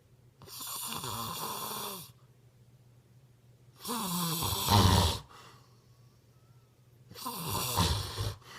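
Snoring: three long snores about three seconds apart, the middle one the loudest.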